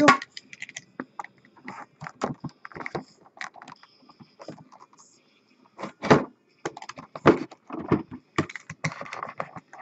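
Sealed cardboard box and its packaging being handled and pried open: irregular clicks, scrapes and crinkles, with a short pause about four seconds in.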